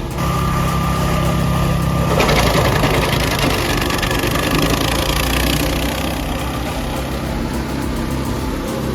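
A machine's engine running; about two seconds in, a louder, rough noise joins it for a few seconds before it settles back to a steady run.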